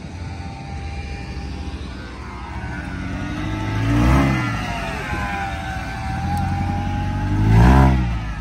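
A car engine running and revved up twice, the pitch climbing and dropping back each time: once about four seconds in and again near the end.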